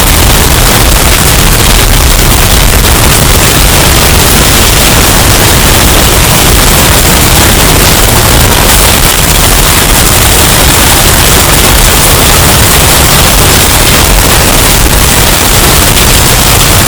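Hurricane wind sound effect, bass-boosted and distorted: a very loud, steady rush of dense noise with no letup.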